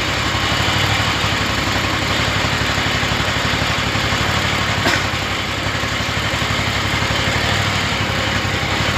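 Engine idling steadily, with one short sharp click about five seconds in.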